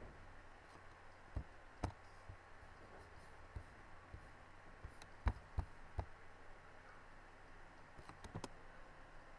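Faint room noise with a low hum, broken by scattered, irregular sharp clicks and light knocks, about eight of them, the loudest a little past halfway.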